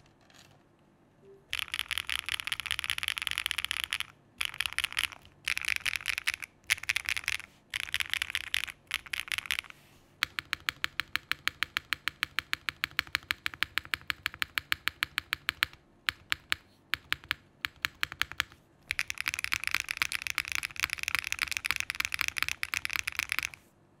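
Rapid key-mashing on a Dots87 mechanical keyboard with Briny switches, a PC plate and GMK Oblivion keycaps. Dense flurries of clacking keystrokes come in several bursts with short pauses, a steadier run of separate fast strokes in the middle, then a final long flurry that cuts off suddenly near the end.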